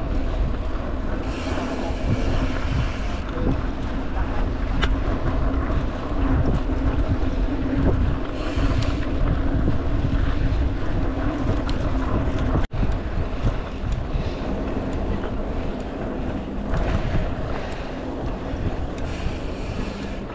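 Wind buffeting the microphone over the steady rolling rumble of a mountain bike on a dirt trail, with a brief dropout about two-thirds of the way through.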